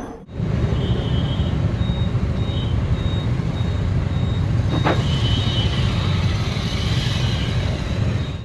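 Heavy city road traffic: the engines of cars, motorcycles and a bus idling and creeping in a jam, a steady low rumble. A faint high beep repeats about twice a second over it.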